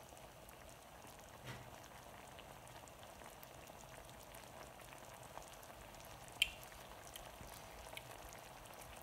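Flour-thickened sauce simmering in a skillet: a faint, steady bubbling with scattered small pops. One sharp click stands out about two-thirds of the way through.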